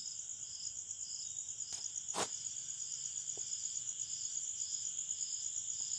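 Insects, most likely crickets, chirping steadily in the background: a high trill with a pulse repeating about every half second. A single sharp click comes a little over two seconds in.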